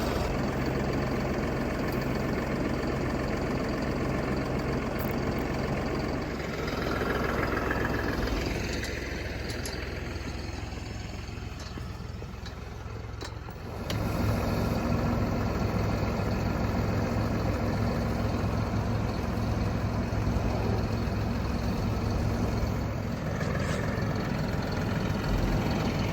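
A vehicle engine running steadily. It eases off about a third of the way in and comes back louder about halfway through.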